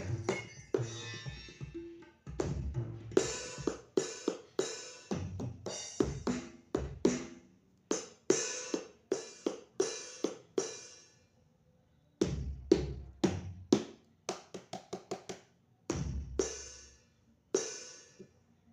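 Roland SPD-20X electronic percussion pad being played through its output, its audio working after repair: single drum and cymbal hits, each ringing out, in irregular groups with short pauses between.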